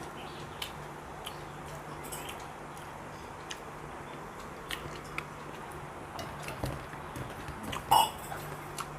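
Close-up eating sounds: chewing a mouthful of rice and vegetable fry, with scattered small mouth clicks and smacks and one louder short smack about eight seconds in.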